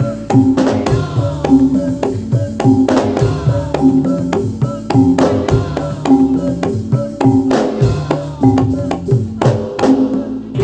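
Javanese gamelan music: a repeating melody of tuned metal percussion over sharp, rhythmic hand-drum strokes.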